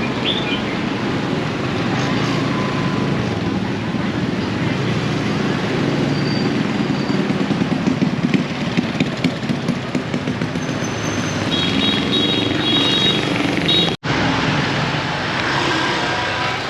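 Busy city street traffic: motorbikes and cars passing in a steady din, with a short high repeated tone about two-thirds of the way through. The sound drops out for an instant near the end.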